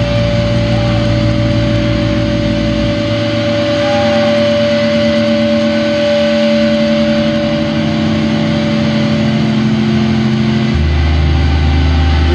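Loud, sustained distorted noise drone from the band's amplifiers: a wall of held tones with hiss over it and no drum strokes. Its deepest rumble drops away about three seconds in, and a heavy low tone comes in near the end.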